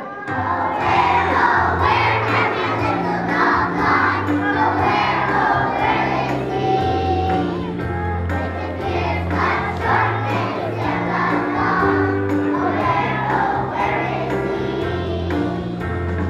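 A group of kindergarten children singing together over instrumental accompaniment, with bass notes that change about once a second.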